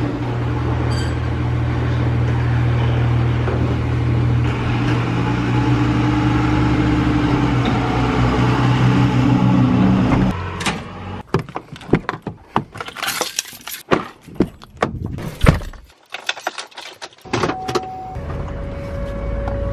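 Electric garage door opener running as the sectional garage door closes: a steady motor hum that stops suddenly about ten seconds in. Then a run of sharp clicks and knocks, and near the end a steady horn-like tone begins.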